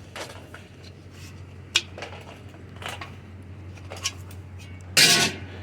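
Light metal clicks and clanks from a screen door frame being bent and worked apart by hand, with a sharp click about two seconds in and a louder clatter near the end.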